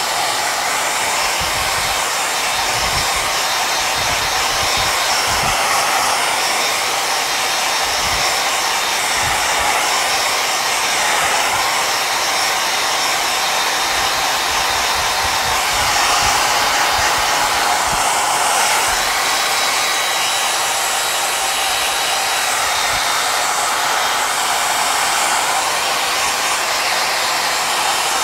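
Handheld Conair hair dryer blowing steadily on the panel to dry fresh acrylic paint before the next layer: an even, unbroken hiss of rushing air with a few faint low rumbles as the stream is moved about.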